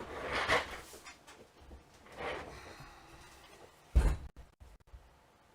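Bench handling noises: two stretches of rustling and scraping, then a single sharp knock about four seconds in.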